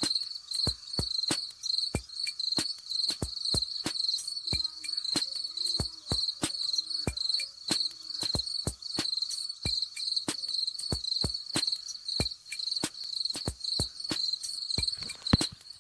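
Crickets chirping in a steady, fast-pulsing high chorus, with many sharp clicks throughout.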